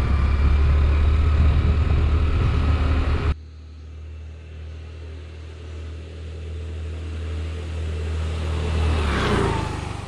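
Scooter engine hum with wind and road noise heard from the moving scooter. After about three seconds it cuts to a scooter approaching from a distance, growing louder and passing close by near the end, its whine dropping in pitch as it goes past.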